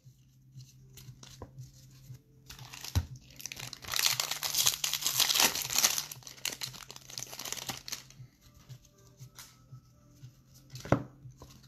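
The foil wrapper of a 2019 Topps Series 2 jumbo baseball card pack being torn open and crinkled, loudest for a few seconds in the middle, with a few sharp taps of cards being handled before and after.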